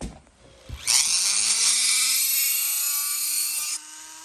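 High-speed handheld rotary tool spinning up about a second in, its whine rising in pitch, then grinding away the plastic plug inside the oil tank of a Stihl MS200T crankcase. It drops off briefly near the end and picks up again.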